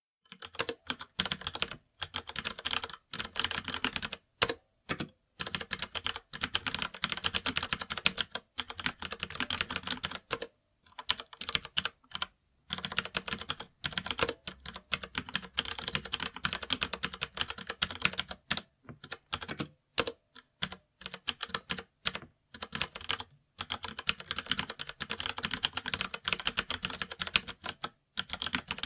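Computer keyboard typing: fast runs of key clicks in bursts, broken now and then by pauses of under a second.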